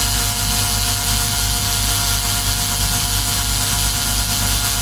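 A small motor running steadily with an even hum and hiss that does not change.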